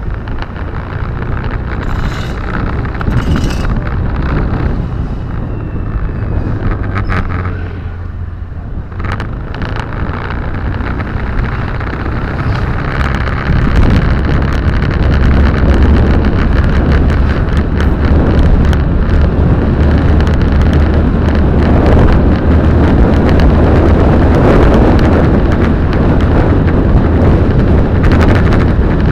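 Car driving, heard from inside the cabin: a steady low rumble of engine and road noise that grows louder about halfway through.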